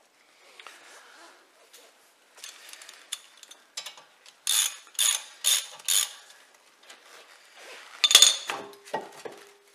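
Metal clicks and clanks of a new drilled and grooved brake disc being lined up and seated on the wheel hub. Midway comes a run of four sharp clicks about two a second. Near the end comes a louder clank that leaves a short ringing note.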